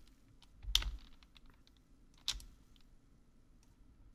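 Faint clicking of a computer mouse and keyboard, with two louder sharp sounds about three-quarters of a second and a little over two seconds in.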